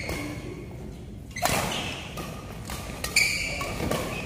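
Badminton play in a hall: two sharp racket strikes on the shuttlecock about two seconds apart, with short high squeaks of shoes on the court floor.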